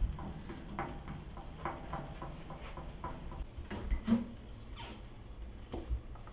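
Wooden spatula scraping and knocking against the sides of an aluminium pot as diced tripe and potatoes are stirred, a stroke about every second. Later there are a few irregular knocks and clatters of an oven door and a metal baking tray being handled.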